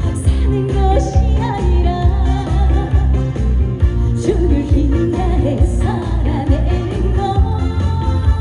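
A woman singing a trot song live through a PA system, over an amplified backing track with a strong bass line.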